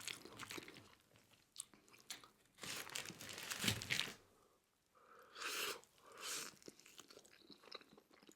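Close-miked chewing of food with crunchy bites, in a few short spells with quiet gaps between.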